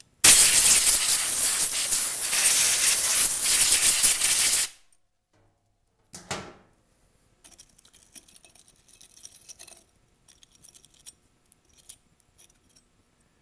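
Compressed-air blow gun hissing for about four and a half seconds as dust is blown off a two-stroke trimmer engine's muffler area, cutting off suddenly. Faint small clicks and rubs follow as the metal muffler cover is handled.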